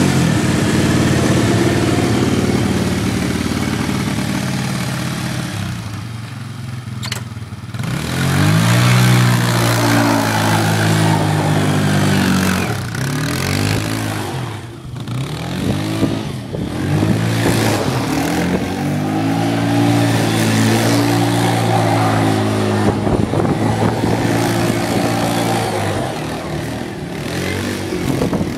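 Small ATV engine running and revving up and down over and over as the quad is ridden round in circles, its pitch rising and falling with each burst of throttle. It runs steadier and drops lower for a few seconds near the start before the repeated revving begins.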